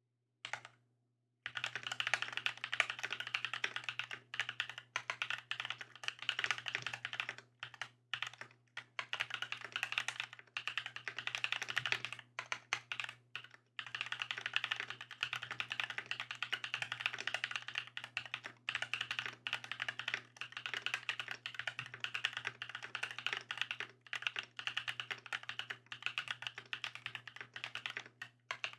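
Typing on an EPOMAKER TH80 Pro mechanical keyboard with factory-lubed Holy Panda tactile switches and double-shot ABS Cherry-profile keycaps. Keystrokes start about a second and a half in and run in quick flurries with brief pauses, over a low steady hum.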